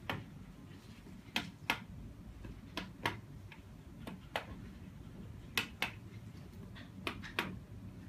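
Sharp plastic clicks, mostly in pairs about a third of a second apart, repeating every second or so: the buttons of a handheld LED-bracelet remote controller being pressed.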